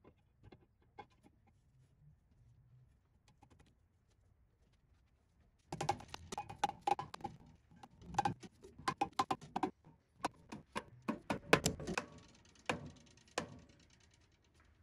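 Metal clinking and tapping as a cast-iron Ford Model A cylinder head is set down over the block's studs and fitted with its hardware. A few faint taps at first, then from about six seconds in a run of irregular sharp clinks and knocks that thins out near the end.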